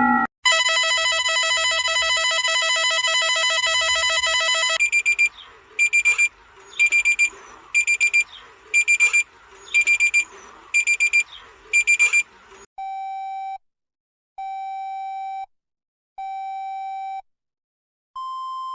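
Synthesized emergency-alert alarm tones in a sequence. First a fast-pulsing chord of several tones, then paired high beeps about once a second, then three long lower beeps, and near the end a single steady tone begins.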